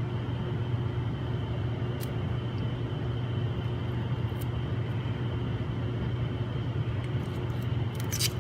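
Steady mechanical hum from a running machine, with a few faint clicks about two seconds in, past the middle and near the end.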